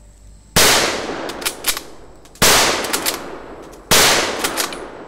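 A WWI-era bolt-action rifle fired three times in quick succession, about one and a half to two seconds apart. Each shot is followed by a decaying echo and a few sharp clicks.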